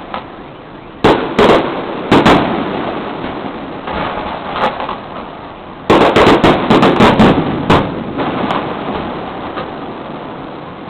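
Aerial fireworks bursting: a few loud bangs a little after a second in and at about two seconds, then a rapid run of bangs from about six to nearly eight seconds, with a rumbling echo between the bursts.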